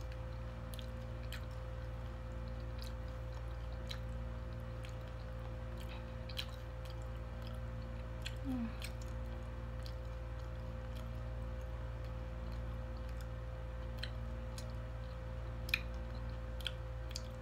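Someone chewing chips with the mouth closed, with scattered faint crunches and clicks, over a steady low hum.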